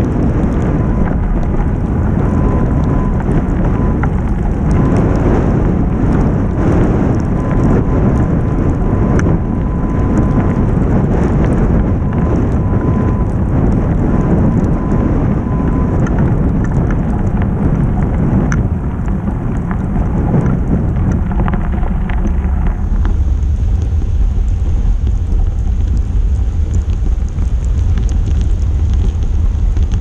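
Snowstorm wind buffeting the microphone of a camera on a moving bicycle: a loud, steady rumble. A little past two-thirds of the way through, the hiss above it falls away, leaving a lower rumble.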